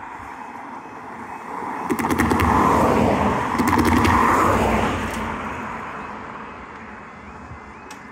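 A Jaguar XJ saloon car drives over the level crossing and passes close by, its engine and tyre noise swelling and then fading. Sharp knocks come as its wheels run over the rails.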